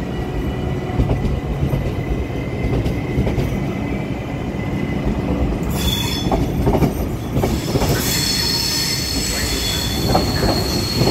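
Trenitalia Hitachi 'Rock' double-deck electric train rolling slowly past, with a steady low rumble and wheels clicking over rail joints. From about six seconds in, a high-pitched wheel squeal sets in and holds.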